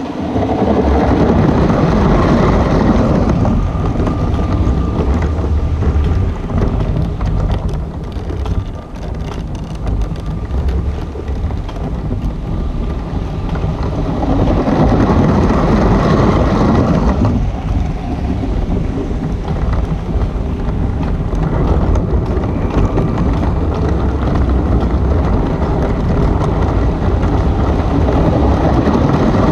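LEGO train wagons rolling past right beside the microphone, plastic wheels rumbling and clattering on plastic track in a loud continuous rumble that swells and eases as the cars go by.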